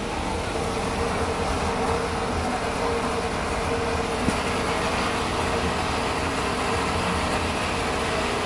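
Steady mechanical noise of bilge pumping in a ship's cargo hold, with water being sucked out of the bilge well. A steady hum joins in about half a second in.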